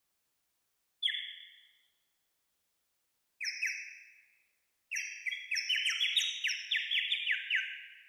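A small hand-held bird-call whistle, blown in short bird-like chirps. There is a single chirp about a second in, a quick pair a couple of seconds later, then a rapid run of many chirps. Each chirp trails off in the hall's echo.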